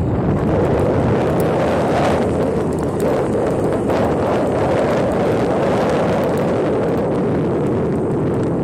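Steady wind buffeting the microphone of a phone filming from a moving vehicle, with engine and road noise underneath.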